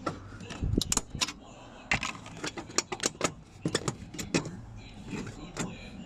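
A screwdriver and small metal parts clicking and rattling as they are handled, in irregular clusters of sharp ticks with short gaps between.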